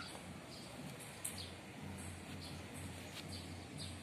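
Small birds chirping outdoors: short, high chirps repeated every half second or so, over a faint low hum.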